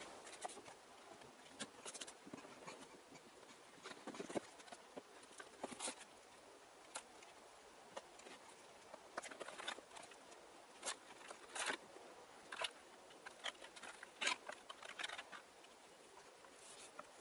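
Faint, scattered clicks, taps and crinkles of a boxed model locomotive being unpacked: the box and its foam insert handled and the model slid out of its clear plastic bag.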